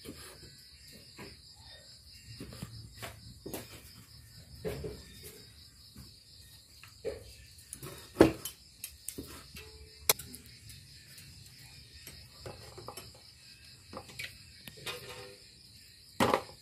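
A steady, high-pitched chirring of crickets, with scattered knocks and clicks over it; the loudest knocks come about eight seconds in and just before the end.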